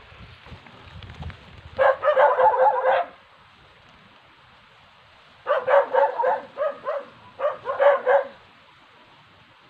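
Two rapid runs of loud animal calls, each call a short pitched yelp. The first run lasts about a second; the second, a few seconds later, lasts nearly three seconds with brief breaks.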